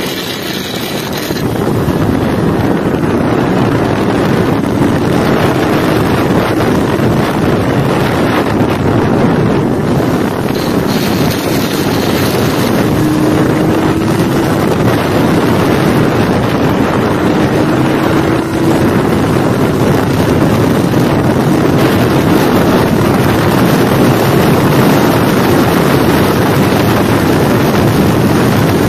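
Kawasaki Ninja 400's parallel-twin engine running hard at speed, largely buried under wind rushing over the microphone; its pitch rises slowly a few times as it pulls.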